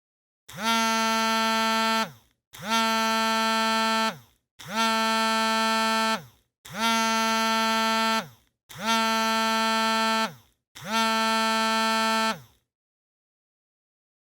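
Mobile phone vibrating in six buzzes of about a second and a half each, with short pauses between, the pitch dipping slightly as each buzz stops.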